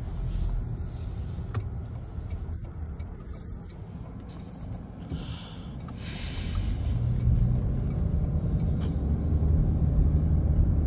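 Car driving on wet pavement, heard from inside the cabin: a low engine and tyre rumble that grows louder about halfway through as the car picks up speed.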